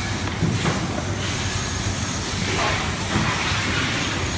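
Steady hissing workshop background noise with a low, even electrical hum underneath.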